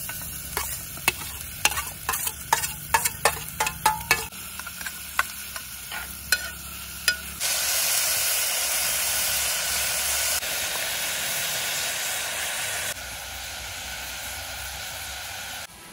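Chopped onion and tomato frying in hot oil in a pot over a wood fire. For the first seven seconds there are scattered sharp pops and crackles, then a loud steady sizzle that drops in level twice and stops shortly before the end.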